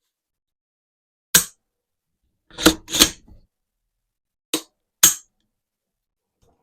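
Dry-firing an AR-15 fitted with a Larue MBT-2S two-stage trigger: five sharp metallic clicks, one and then two pairs, as the hammer drops and the rifle is recocked.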